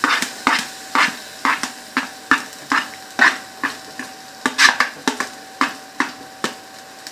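Sliced onions frying in hot oil in a nonstick pan, with sharp, irregular pops and crackles, two or three a second.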